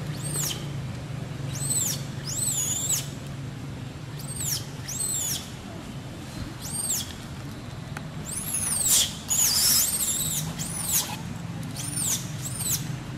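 Baby macaque screaming: a string of about ten shrill squeals, each rising then falling in pitch, with a longer, louder run of cries around the middle, over a low steady hum.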